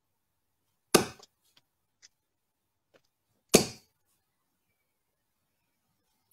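Darts striking a dartboard: two sharp single thuds about two and a half seconds apart.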